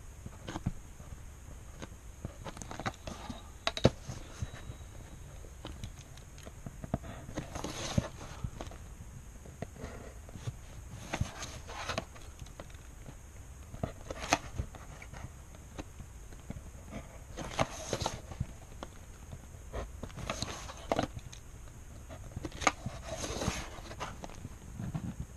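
Sheets of paper, a clear plastic ruler and a pen being handled and repositioned: scattered irregular taps and clicks with short rustles of paper.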